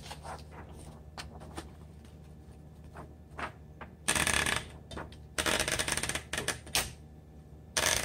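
A sheet of paper being fed into a 1955 Olympia SM3 manual typewriter and rolled in around the platen by its knob: a few light clicks, then dry papery rustling and rasping in bursts about four seconds in, again a second later for about a second and a half, and briefly near the end.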